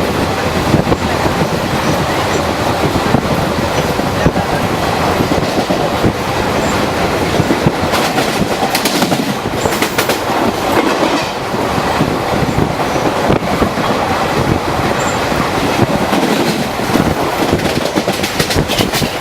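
ICF passenger coaches of an express train passing at speed, a steady rumble of wheels on rail with clickety-clack over the rail joints. Clusters of sharp clicks come about eight seconds in and again near the end.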